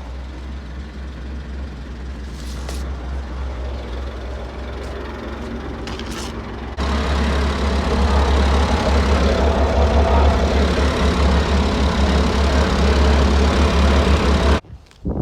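David Brown 4600 tractor engine running steadily with a deep hum. It steps up noticeably louder about seven seconds in, then cuts off suddenly near the end.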